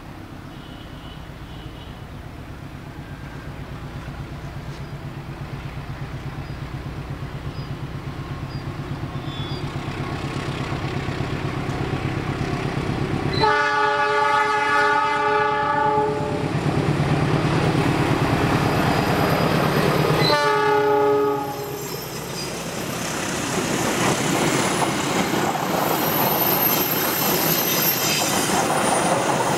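Diesel locomotive approaching, its engine rumble growing steadily louder, sounding its horn in a long blast about halfway through and a short blast some seven seconds later. Then the passenger coaches pass close by, their wheels clattering over the rail joints.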